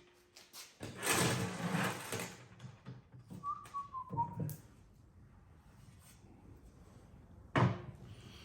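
Hand tools being worked on a small, cheap safe: a stretch of scraping and rattling, a brief falling whistle-like squeak, then one sharp knock near the end.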